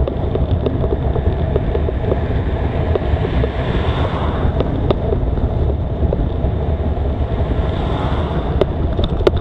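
Wind rumbling on the microphone while cycling uphill, with scattered small clicks. The rider's heavy breathing swells twice, about four seconds in and again near the end.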